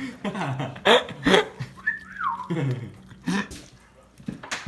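Indistinct voice sounds in short bursts, with one high falling whistle-like glide about two seconds in.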